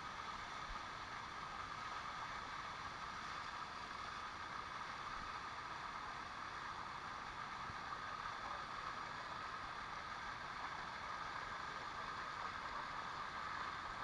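Shallow water rushing down a rock cascade, a steady, even rush.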